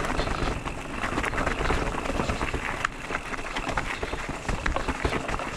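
Haibike SDURO FullNine 4.0 electric mountain bike rolling over a rough trail of roots and stones: a steady rush of tyre noise full of small knocks and rattles from the bike. The tyres are pumped hard, which the rider thinks makes them too firm.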